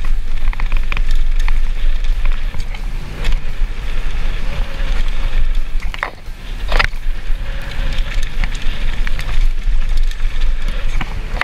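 Mountain bike riding down a trail, heard from a camera on the bike or rider: a steady wind rumble on the microphone and tyre noise, with clicks and rattles from the bike over bumps. The loudest knocks come about six and seven seconds in.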